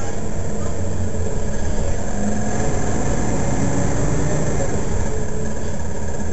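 Mercedes-Benz Citaro Facelift city bus engine idling steadily while the bus stands at a stop.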